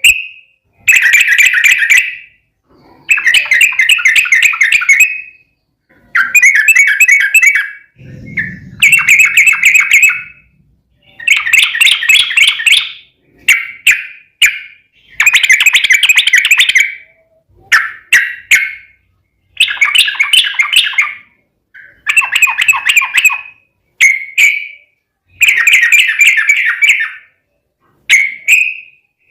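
Yellow-vented bulbul singing loudly in fast bubbling phrases about one to two seconds long, repeated about a dozen times with short pauses between them.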